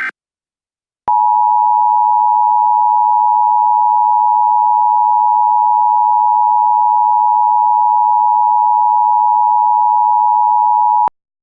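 Emergency Alert System attention signal: a loud, steady electronic tone held for about ten seconds, starting about a second in and cutting off sharply.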